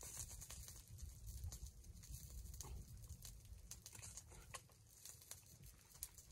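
Near silence: a faint, uneven low rumble of wind on the microphone, with scattered soft ticks and crackles.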